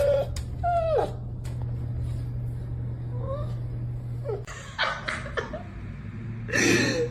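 A dog whining in short, high cries that slide down in pitch: two close together at the start, fainter ones in the middle, and a louder cry near the end. A steady low hum runs underneath.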